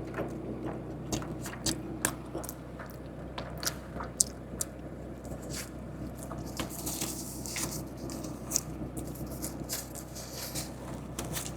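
Close-up eating of a chicken wrap: wet chewing, bites and mouth clicks scattered irregularly throughout, with a brief rustle about seven seconds in.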